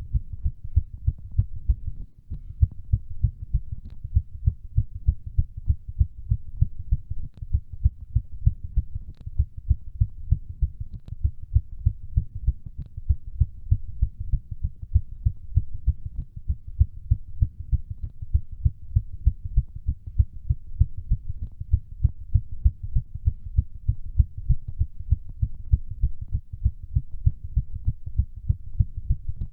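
A human heart beating fast and regularly, a steady run of low thumps, its rate raised by a workout.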